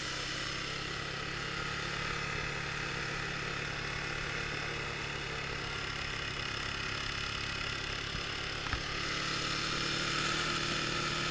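Honda 400EX quad's single-cylinder four-stroke engine, bored 10 over, running steadily as the quad rides along, with no change in engine speed.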